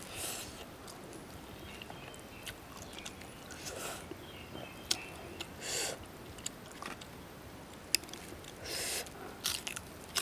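Instant noodles being eaten with chopsticks: quiet chewing broken by several short, noisy slurps spread through.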